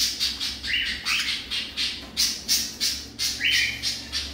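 Crimson-bellied conure squawking: a rapid string of harsh calls, about three a second, with a longer, clearer note about a second in and again near the end.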